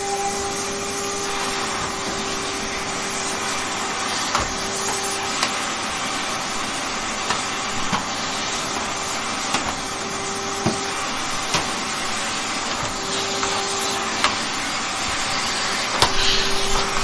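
Vacuum cleaner running steadily: an even rushing noise with a humming tone that comes and goes. Scattered small clicks or knocks sound throughout, with a brief cluster of them near the end.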